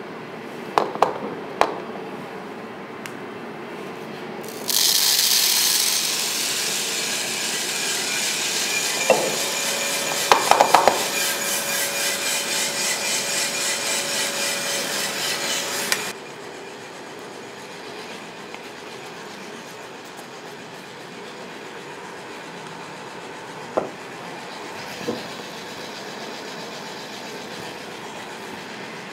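Aillio Bullet R1 V2 drum coffee roaster being charged: a few clicks from the machine, then green Robusta beans drop into the spinning hot drum with a loud rattling rush, the tumbling beans pulsing about twice a second until it cuts off suddenly. After that the roaster runs with a steadier, quieter whir, with a couple of light knocks.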